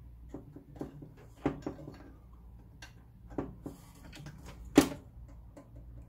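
Light metal clicks and knocks as a homemade tubular glow-plug tool is slid over the glow plug and seated in a diesel heater's finned metal housing, with a sharper knock near the end.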